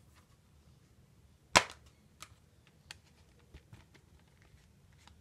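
Plastic Blu-ray case snapping open with one sharp click about a second and a half in, followed by a few lighter plastic clicks as the case is handled.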